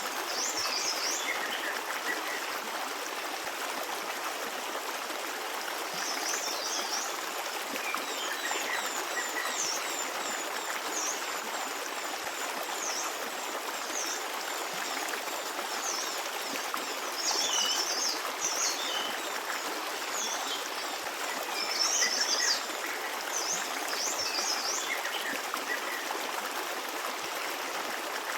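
A forest stream running steadily over rocks, with small birds chirping in short bursts of quick high calls every few seconds.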